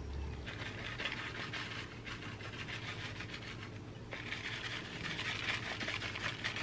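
Grated cheese being shaken from a plastic packet over bowls of pasta: two bouts of soft, fine rustling hiss, the second starting about four seconds in.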